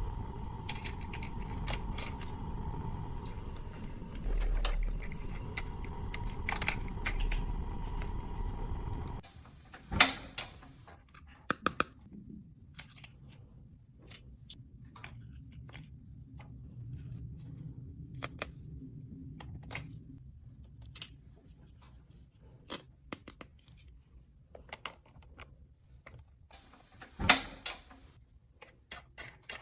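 Small clicks and knocks of objects being handled, scattered and irregular. For the first nine seconds a steady hum with a faint high tone runs under them, then stops abruptly; after that the clicks stand out against a quieter background, two of them much louder than the rest.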